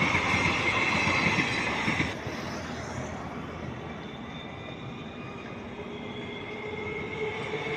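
Railway passenger coaches rolling past on the track, with a steady high whine over the rolling noise. About two seconds in the sound cuts to a quieter, more distant train approaching, and a steady low tone comes in near the end.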